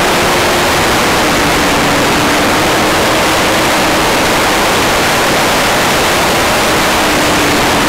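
Wind blasting the microphone of an onboard camera on a Yamaha R1 motorcycle riding at speed: a loud, steady hiss that covers almost everything. Beneath it is the engine's faint, steady drone.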